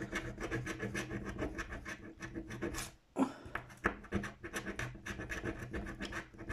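Rapid rubbing strokes scraping the coating off a paper scratch-card lottery ticket, with a short break about three seconds in.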